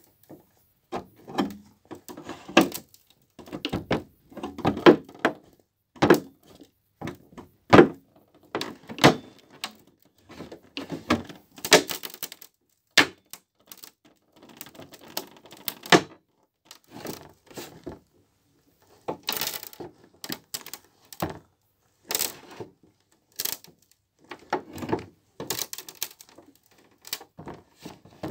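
Boots stomping on foam, crushing it with crunching thuds that come irregularly in flurries, broken by short pauses.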